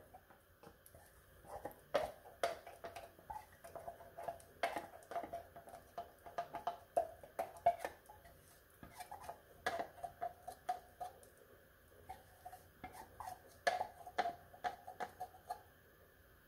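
Soft, irregular small clicks and plops, several a second, from a pot of thick porridge on the hob and a spoon working at the condensed milk can as it is emptied into it.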